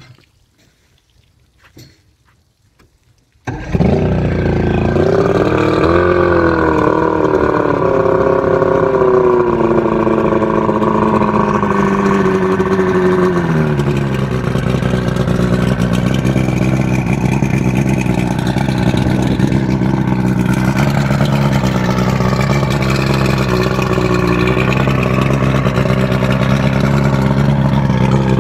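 Evinrude 115 V4 two-stroke outboard starting about three and a half seconds in and running at a fast, wavering idle that settles to a steady, lower idle about ten seconds later. It is running on a garden hose to flush the motor.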